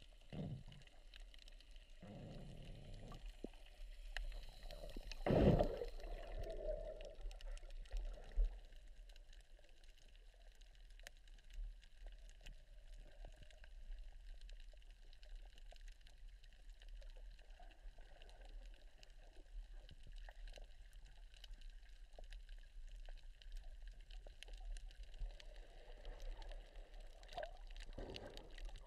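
Muffled underwater water noise from a submerged camera: a faint, steady wash with a few gurgling sloshes, the loudest about five seconds in. Near the end the noise swells as a wave churns the surface overhead.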